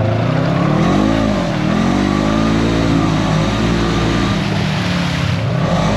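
Polaris RZR 900 side-by-side engine revving under power, its pitch dipping about a second and a half in, then climbing and holding before dropping again near the end.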